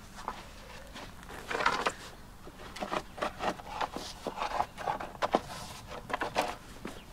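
A flat wooden board scraping and pushing loose soil in a shallow hole: one longer scrape about a second and a half in, then a run of short, irregular scrapes.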